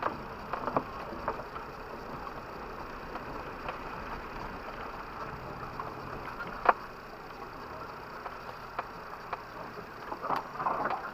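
Off-road 4x4 moving over rough ground: a steady run of vehicle noise with scattered sharp knocks and clunks, the loudest about six and a half seconds in.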